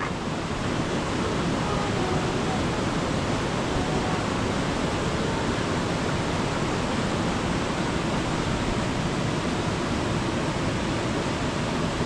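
Waterfall: the steady, unbroken rush of falling water.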